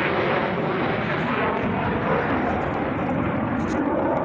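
Steady aircraft engine noise, an even rush with no change in pitch.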